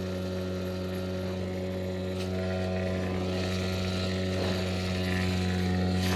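Mercury 5 hp outboard motor running steadily at speed, pushing the inflatable boat at about 30 km/h downstream; a constant engine drone that grows slightly louder about halfway through.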